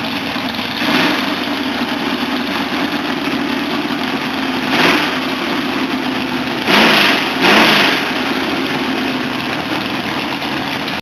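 Engines of hot rods and trucks running at low cruising speed as they roll past, a steady engine hum with louder swells as single vehicles pass close, about a second in, near five seconds and twice around seven seconds.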